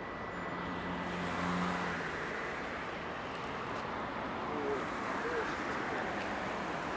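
Steady outdoor background noise, typical of distant road traffic, with a low hum in the first two seconds and two faint short chirps about five seconds in.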